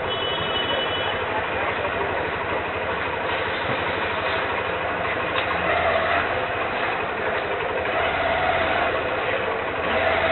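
Busy street-market ambience: steady crowd noise with motor scooter engines running close by. A brief high tone sounds near the start.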